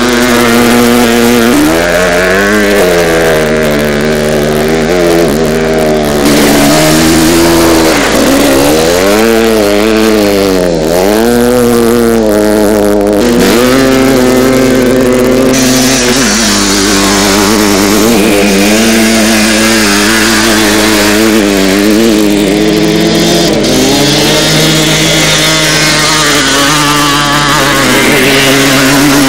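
Enduro dirt-bike engines running hard, revving up and down as several motorcycles ride past, the pitch swinging with the throttle and gear changes, steadier in the second half.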